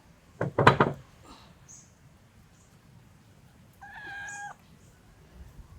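Puppy whining: one steady, high-pitched cry about four seconds in. It comes after a short, louder sudden sound just under a second in.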